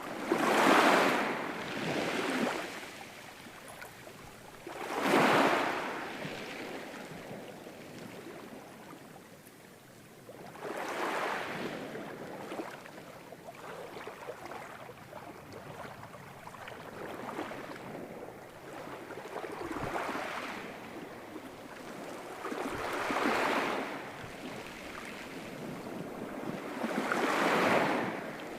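Ocean waves breaking and washing up a shore, one after another about every four to six seconds, the first two the loudest, with a softer wash between them.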